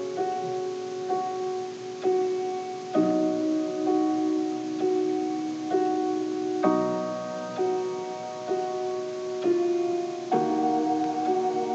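Slow, gentle piano music: single notes and chords struck every second or so and left to ring, with fuller chords about three, seven and ten seconds in.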